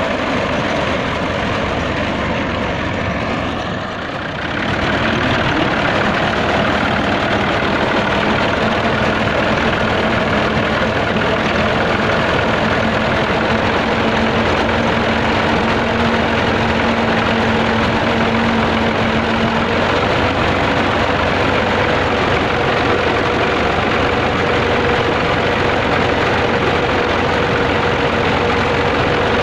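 Old Al-Ghazi tractor's diesel engine running steadily under load while driving a front-mounted reaper cutting wheat. The sound dips briefly about four seconds in, then runs louder and steady.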